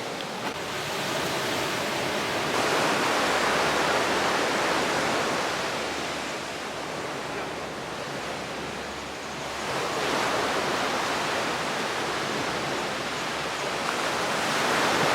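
Sea waves breaking and washing up a beach, swelling and ebbing in slow surges about every six seconds.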